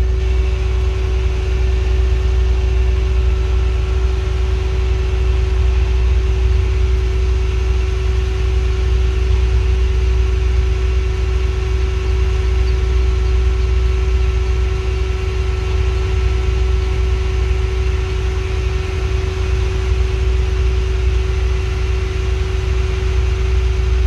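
An engine idling steadily: a constant low rumble with a steady hum above it.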